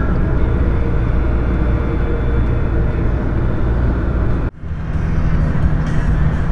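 Steady road and engine noise inside a moving car's cabin, cut off for an instant about four and a half seconds in, then resuming.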